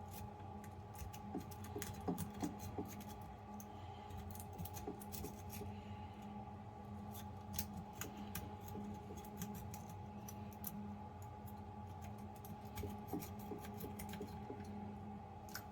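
Rake pick scraping in and out across the pins of a hidden-shackle padlock: a run of light, irregular metallic clicks and scrapes, over a steady faint hum.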